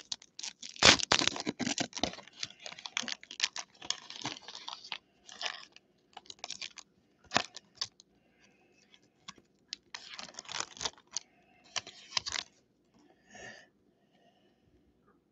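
Foil Pokémon booster pack wrapper being torn open and crinkled in the hands: a run of irregular crackles and rustles, dense at first and thinning out with pauses later on.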